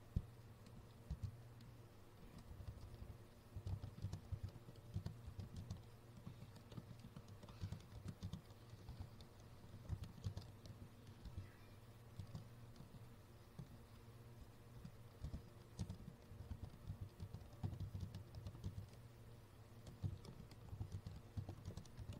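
Computer keyboard typing, faint, in quick runs of keystrokes with short pauses between, over a low steady hum.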